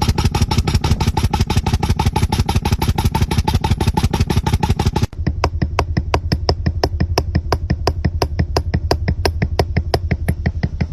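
A machine running with a fast, even mechanical knocking of about ten strokes a second. About five seconds in it cuts to a slower beat of roughly six sharp clicks a second over a low steady hum.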